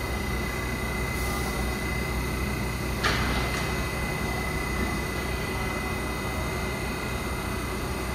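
R188 subway train at a station: a steady low rumble with a constant high tone over it. A short, sharp hiss comes about three seconds in.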